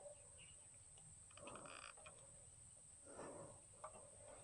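Near silence, with a few faint low grunt-like sounds and a single faint click near the end.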